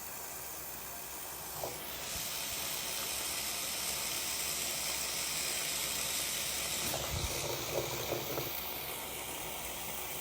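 Running water spraying steadily, an even hiss, with a few faint brief sounds in the second half.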